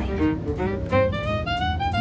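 Background music: a bowed string melody over a steady bass line, with one note gliding upward near the end.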